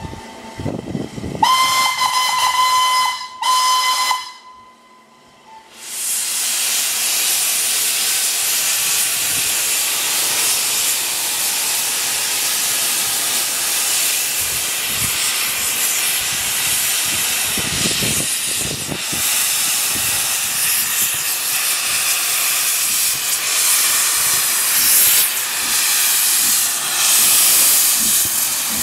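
Steam whistle of the Southern Railway S15 class 4-6-0 No. 847 sounding a long blast and then a short one about two seconds in. After a brief lull comes a loud, steady hiss of steam from the open cylinder drain cocks as the locomotive starts moving, clearing condensed water from its cylinders.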